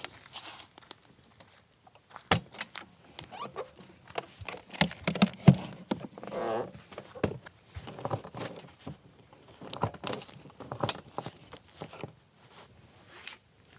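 Irregular clicks, knocks and light rattles of gear being handled, with a few sharper knocks scattered through.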